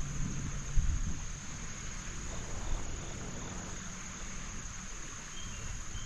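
Steady, high-pitched trilling of insects in the riverside vegetation, one unbroken tone, over a low rumble on the microphone with a single bump about a second in.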